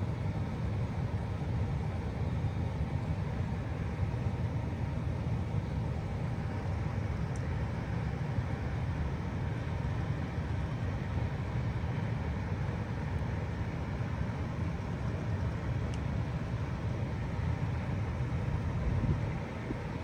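2007 Bard 3-ton wall-hung heat pump running in heat mode: a steady low hum from the compressor and outdoor fan, with faint steady tones above it. The level dips slightly just before the end.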